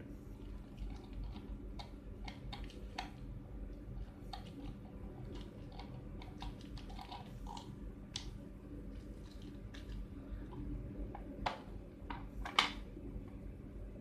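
Light scattered clicks and taps of a small flower-type (star) key working the security screw in the base of a plastic keypad and handling its case, with two sharper clicks near the end.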